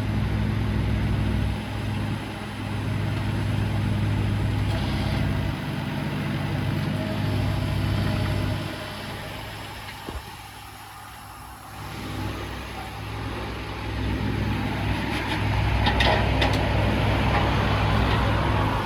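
Takeuchi TB216 mini excavator's 3-cylinder Yanmar diesel running. It drops back for a couple of seconds about ten seconds in, then picks up again, with a few sharp clanks near the end.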